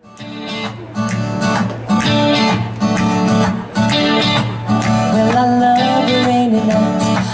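Country band playing the instrumental intro of a song, with guitar strumming over a steady beat. The music starts suddenly out of silence and builds to full level within about a second.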